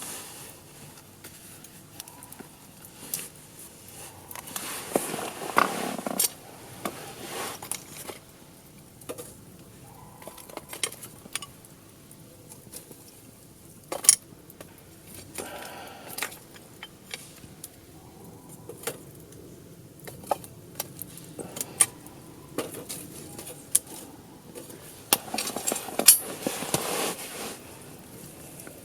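Wood fire crackling with scattered sharp pops and a few brief surges of hissing, rushing flame.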